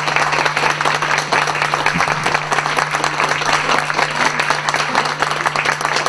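Audience applauding steadily, with a steady low hum underneath.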